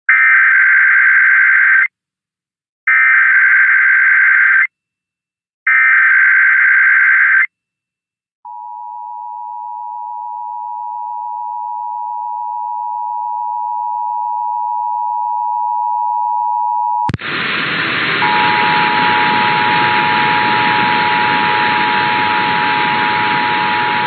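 Emergency Alert System test: three harsh buzzing bursts of digital SAME header data, each about two seconds long with a short gap between them. About eight seconds in, the steady two-tone EAS attention signal (853 and 960 Hz) starts and slowly grows louder. About seventeen seconds in there is a click, and a loud hiss of static joins the tone.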